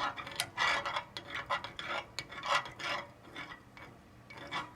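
A spoon stirring beeswax and mineral oil in a pan, the wax only partly melted: quick repeated scraping strokes against the pan, growing fainter after about three seconds.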